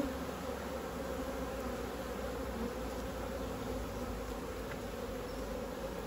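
Honeybees swarming over an open brood box, a steady buzzing hum with a higher overtone, and a short knock right at the start.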